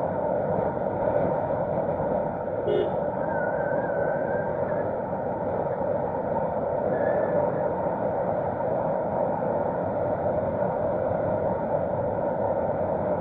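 Steady running noise of a moving vehicle, with an even hum that does not rise or fall.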